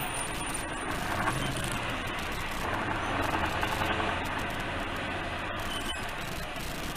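Steady engine and road noise of a moving vehicle, heard from inside its cab while it drives on, with no sharp impacts.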